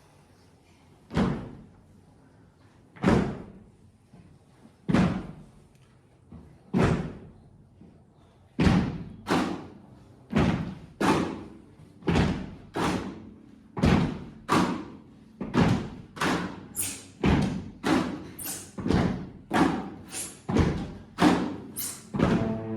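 Single percussive thuds with a short ring, struck as the rhythmic opening of a cello-ensemble piece. They come about two seconds apart at first, then from about nine seconds in faster and faster, reaching about two a second near the end.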